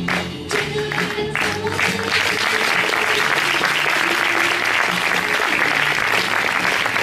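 Theatre audience applauding at the curtain call over music with a beat; the clapping fills out into dense, steady applause about two seconds in.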